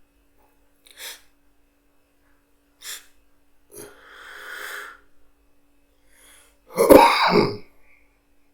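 A person takes short breathy sniffs and one long drawn breath, then sneezes loudly in two parts about seven seconds in.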